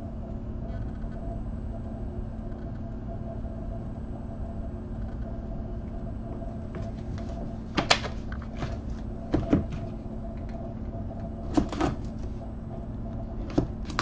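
Trading cards and packs being handled on a table: a few sharp clicks and taps in small clusters from about eight seconds in, over a steady low room hum.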